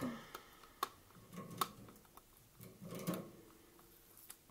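Eyeshadow palette being handled and picked at to free the tape sealing it shut: a few sharp clicks with soft rustling between them.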